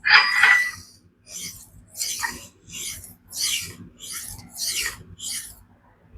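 Steel knife blade (Magnamax) scraped in strokes across a diamond sharpening stone, about nine rasping passes, the first the loudest, then roughly two a second. This is edge grinding to take the remaining convexity out and form a flat V bevel with a burr.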